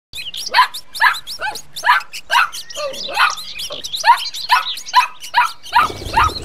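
A dog yelping over and over, about two short falling yelps a second, with high chirps sounding over it.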